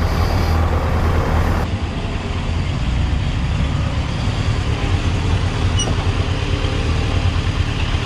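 1991 Kawasaki Voyager's liquid-cooled inline-four engine running at low speed as the touring motorcycle rolls slowly in and comes to a stop. It gives a steady low engine note.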